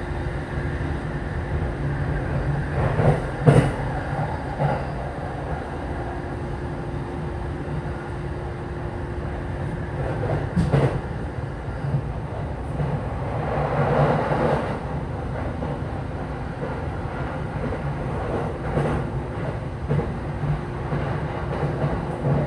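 Rinkai Line 70-000 series electric train running between stations, heard from inside the car: a steady rumble of wheels on rail with a steady hum. There are sharp clacks about three and a half and eleven seconds in, and a swell of noise around fourteen seconds in.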